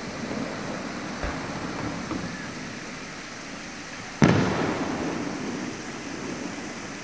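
Aerial firework shells bursting. A faint low thud comes about a second in, then a loud boom about four seconds in that dies away over a couple of seconds.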